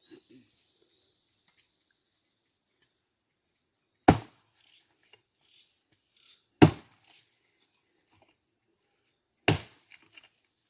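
Axe chopping dry wood: three sharp blows, about two and a half to three seconds apart. A steady high cricket drone runs underneath.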